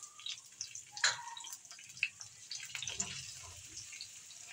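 Freshly added chopped onion and garlic sizzling in hot ghee in a non-stick frying pan, a steady crackle with scattered sharper pops, the strongest about one and two seconds in. A spatula stirs the pan near the end.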